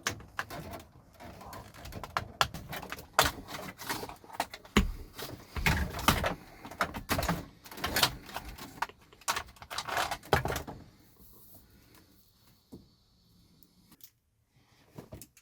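Irregular clicks, taps and rustles of plastic parts and wiring being handled, as a USB cable is pulled out through a truck dashboard. They stop about ten seconds in, leaving only a few faint taps.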